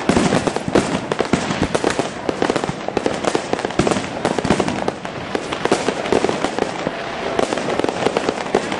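Fireworks going off in a dense, continuous barrage of overlapping bangs and crackles, with no pause.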